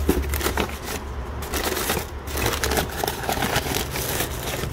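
Crinkling, crackling handling noise with many irregular clicks as a new replacement alternator is handled, over a steady low hum.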